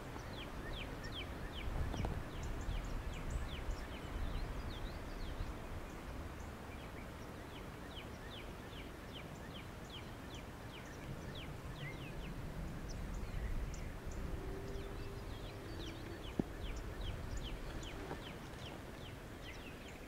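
Wind buffeting the microphone in a low rumble, while a small bird sings runs of quick, high, down-slurred chirps over it.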